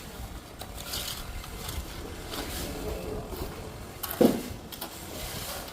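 Construction-site work sounds: faint scraping and light knocks, with one short, louder knock about four seconds in.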